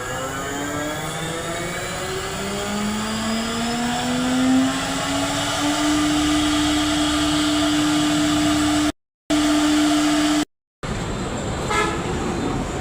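CNC wood-cutting router's motors whining: several tones rise in pitch over the first few seconds and settle into one steady hum. The sound cuts out twice briefly, and near the end the tone comes in short pulses.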